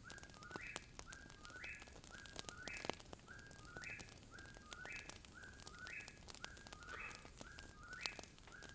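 A bird whistling the same short two-note call over and over, about once a second, each call a lower note stepping up to a higher one. Faint crackles from a burning campfire come through between the calls.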